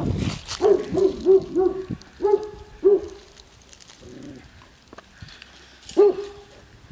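A dog barking: a quick run of short, even-pitched barks in the first three seconds, then a single bark near the end.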